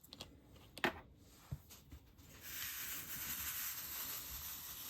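Round diamond-painting drills being shaken in a ridged drill tray to line them up: a couple of light clicks, then from about two and a half seconds in a steady rustling hiss of many tiny drills sliding and rattling across the tray.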